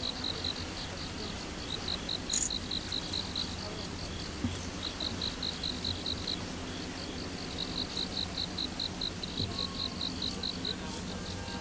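A cricket chirping, a rapid even pulse of about five notes a second, in runs broken by short pauses, over a low steady background noise.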